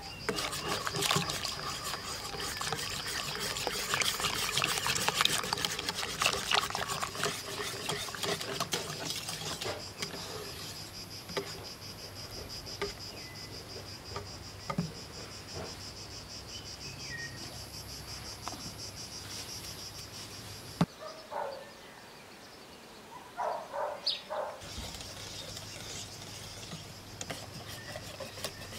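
Wire whisk beating batter in an enamel pot, rapid clicking and scraping against the sides for about the first ten seconds, then quieter stirring. A steady high chirring of insects goes on underneath.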